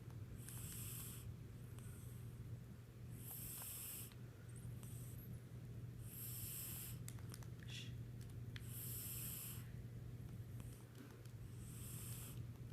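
Yellow tabby cat snoring in its sleep: five breaths, one about every three seconds, over a steady low hum.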